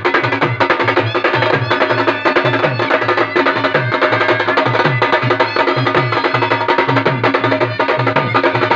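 Khalu baja folk band playing: several shoulder-slung barrel drums, struck with a stick on one head and a hand on the other, beat out a fast, steady, driving rhythm with sharp stick cracks, and a trumpet plays a melody over the drums.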